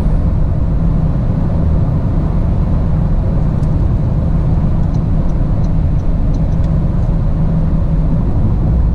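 Steady engine and road rumble of a car driving along at cruising speed, heard from inside the cabin.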